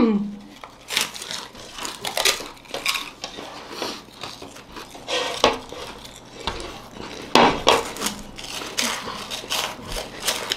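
People biting and chewing crisp tube-shaped dhungre chips (finger chips), an irregular run of sharp crunches and crackles, with a louder crunch about seven seconds in.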